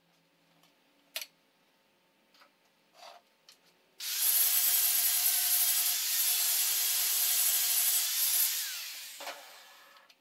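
An angle grinder grinds a steel bracket: it comes on suddenly about four seconds in, runs steadily for about four and a half seconds, then tails off as the disc spins down. A few light clicks of metal parts being handled come before it.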